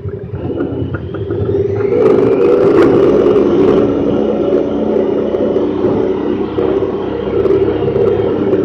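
Honda Pioneer 1000-5 side-by-side's parallel-twin engine heard from inside the open cab, getting louder as it picks up speed over the first two seconds and then running steadily under way. A few brief clicks and knocks come about two to three seconds in.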